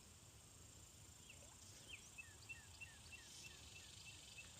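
Faint bird calls: a few scattered chirps, then a quick run of short repeated notes, about three a second, over quiet outdoor background noise.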